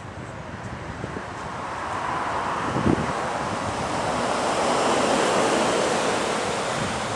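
A vehicle passing close by on a wet road: a rushing tyre hiss that swells to a peak about five seconds in and then fades away.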